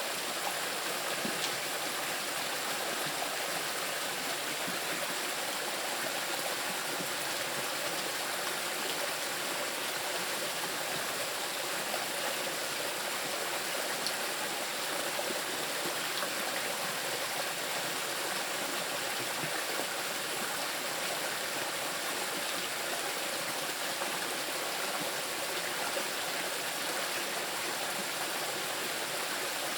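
A small river rushing steadily over rocks, a constant even wash of water with no pauses.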